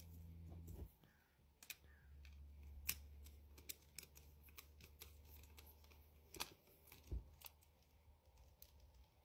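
Faint scattered clicks and taps of a screwdriver working at the wire terminal of a plastic lamp socket, over a low steady hum.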